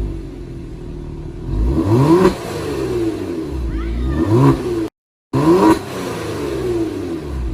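Kia Stinger GT's twin-turbo V6, fitted with aftermarket ARK downpipes, revved three times while parked, each rev rising and falling in pitch. The sound cuts out briefly just before the third rev.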